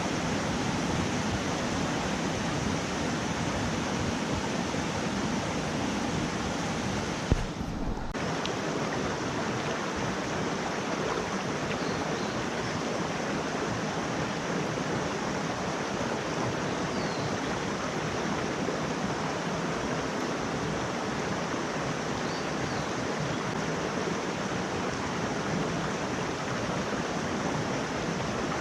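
Mountain stream rushing steadily over rocks, an even wash of water noise. A single short knock sounds about seven seconds in.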